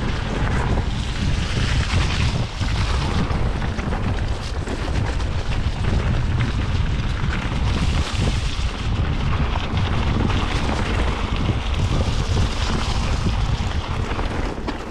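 Wind buffeting the microphone: a steady, dense low rumble with hiss above it.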